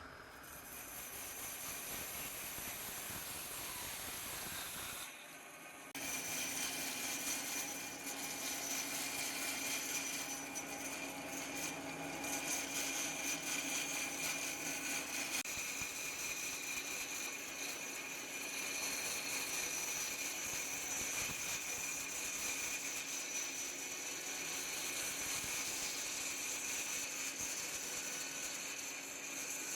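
Woodworking power tool running steadily with a constant high whine over a noisy hiss. The sound briefly drops about five seconds in and changes character about fifteen seconds in.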